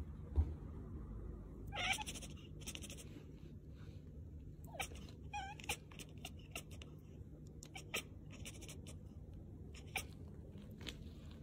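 Long-haired ginger cat giving a few soft, short meows, about 2 s in and again near 5 s, with scattered sharp little clicks between them.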